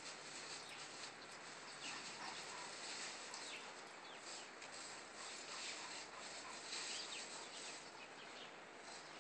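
Faint outdoor background hiss with scattered short, high-pitched animal chirps.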